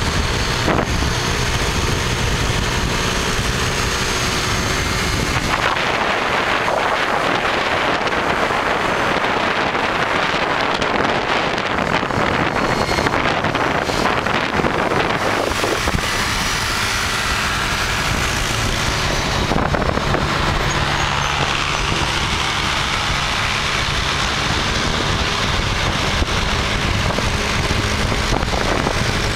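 Continuous wind rush on the microphone from travelling along a road, over the running engines and tyre noise of road traffic. The rush turns fuller and brighter for a stretch in the middle.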